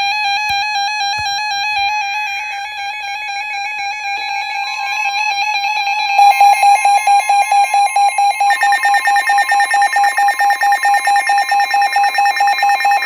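Electronic alarms of weather alert radios sounding for an incoming warning. A loud warbling tone is joined by more alarm tones about five, six and eight seconds in, and the sound pulses rapidly from about the middle on.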